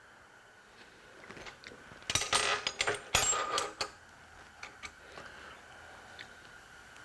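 Metal transmission parts clinking and clattering as they are handled, with a loud run of clanks and ringing about two to four seconds in and scattered light ticks around it.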